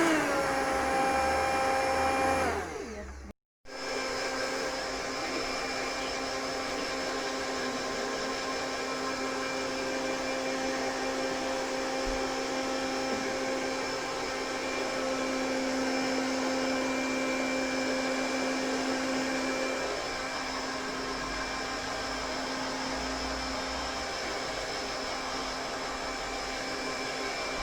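Gama hand-held hair dryer running steadily, a motor whine over a rush of blown air, as it dries a baby's hair. It breaks off to silence for a moment about three seconds in, then runs on unchanged.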